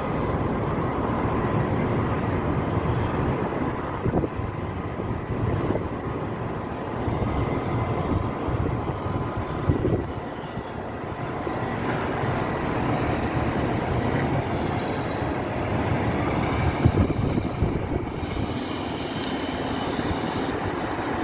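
Fire engine's diesel engine running as the truck drives along and passes close, a steady heavy rumble.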